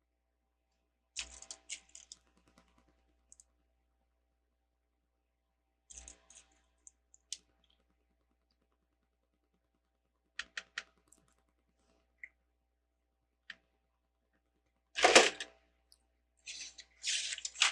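Plastic LEGO bricks clicking and clattering as pieces are handled and pressed together, in scattered bursts of sharp clicks with pauses between; the loudest clatter comes about fifteen seconds in, with another run of clicks near the end.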